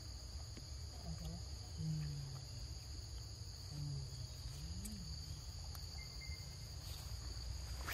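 Steady insect chorus droning at two high pitches, with a few faint short low hums in the first five seconds.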